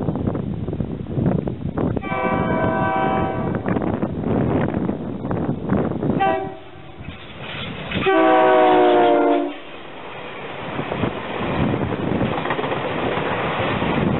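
SEPTA Silverliner V electric commuter train sounding its horn as it approaches and passes: a blast about two seconds in, a brief one around six seconds, then the loudest blast, lower in pitch, as the cars sweep by. The rushing rumble of the passing train runs under it.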